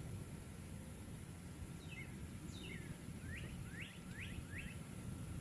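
Faint high-pitched chirps from a small animal: two short falling chirps about two seconds in, then four quick rising ones, over a low steady rumble.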